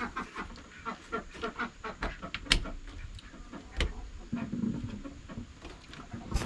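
Irregular small clicks and taps of wires being handled and fitted into DIN-rail terminal blocks, with a couple of sharper clicks in the middle, while chickens cluck faintly.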